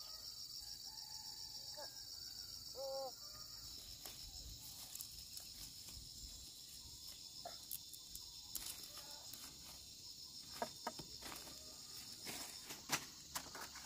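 Insects chirring steadily in a high, pulsing drone. From about eight seconds in, scattered crackles and clicks of plastic mulch sheeting and dry melon vines being handled. A short vocal sound about three seconds in.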